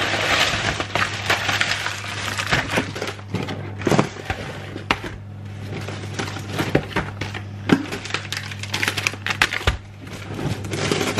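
Groceries being unpacked and put away: plastic shopping bags rustling and crinkling, with repeated knocks and clicks of items being handled and set down, over a low steady hum.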